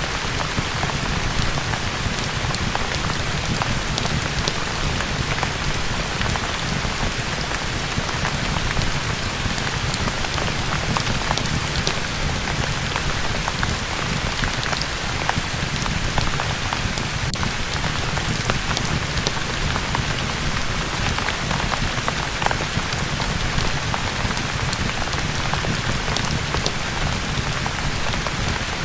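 Steady rain with a fireplace crackling: an even hiss with scattered sharp crackles.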